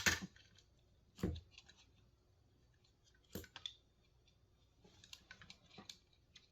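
Faint clicks and taps of small plastic mouse parts being handled while an internal ribbon cable is fitted back into its connector. There are a few sharp clicks spread out, then a run of small ticks near the end.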